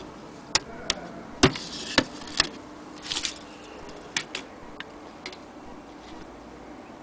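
Irregular sharp clicks and knocks from a glass clock dome and a steel tape measure being handled, with a couple of brief scrapes; the loudest knock comes about a second and a half in.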